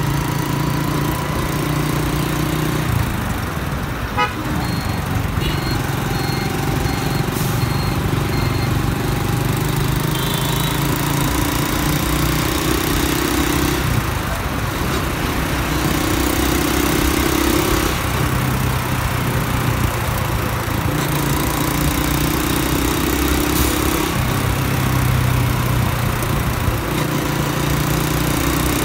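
Honda Dream single-cylinder motorcycle engine running steadily while riding in traffic, its drone shifting up and down every few seconds with the throttle. A few short horn beeps sound about four to nine seconds in.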